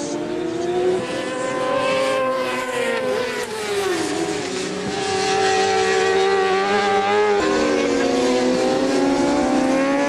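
Racing motorcycle engines at high revs on track, more than one heard at once, their pitch rising and dropping through throttle and gear changes. About seven seconds in the sound changes abruptly to another stretch of engines climbing in pitch.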